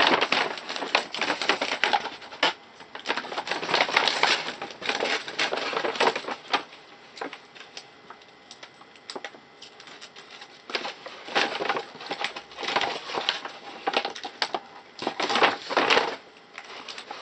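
Brown paper packing material being crumpled and rustled by hand, a run of crisp crinkles that eases off for a few seconds in the middle and then picks up again.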